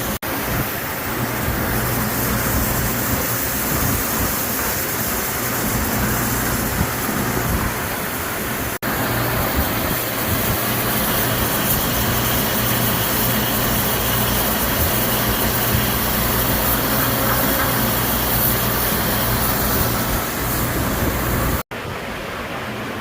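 CNC milling machine running a cut: a loud, steady hiss with a low hum underneath. It breaks off abruptly twice, and after the second break, near the end, it is quieter.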